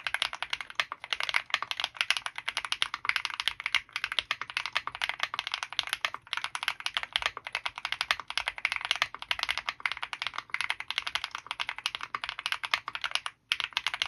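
Fast, continuous typing on an Owlab Mr.Suit mechanical keyboard with Krytox-lubed KTT FBB F1 switches, GMK Serenity keycaps and EPT plate foam: a dense stream of keystroke clacks, with a brief pause near the end.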